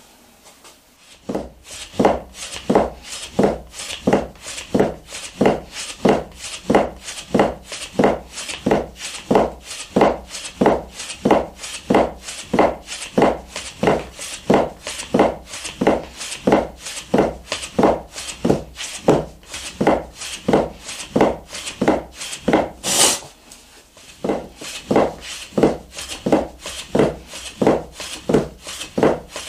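Heavy steel soba-cutting knife chopping through folded buckwheat dough onto a wooden board, each cut a short knock, a little under two a second in a steady rhythm. About two-thirds of the way through there is one sharper click and a brief pause, then the cutting resumes.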